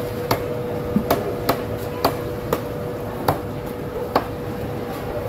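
Large machete-style knife chopping through tuna flesh onto a cutting board: a series of sharp knocks, about two a second and irregularly spaced, over market background noise.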